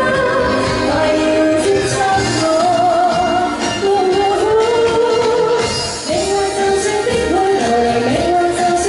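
A female singer sings a Cantonese pop song live into a microphone over backing music, with long held notes carrying a light vibrato.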